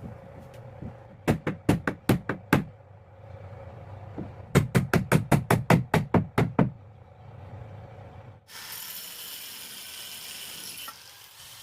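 Hammer blows on wood: a run of about six quick strikes, then a longer run of about a dozen. Near the end a steady hiss starts abruptly.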